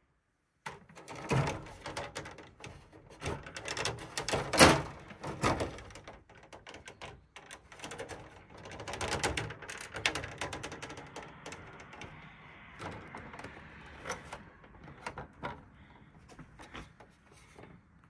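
Irregular clicks, knocks and rustling of close handling, thick in the first six seconds with one sharp knock about four and a half seconds in, then sparser.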